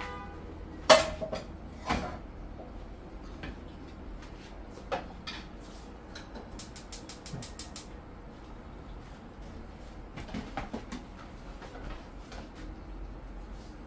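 Cookware clatter: pots and utensils knocking. The loudest is a metallic clank about a second in that rings briefly. Further knocks and clinks follow, with a quick run of about a dozen ticks in the middle.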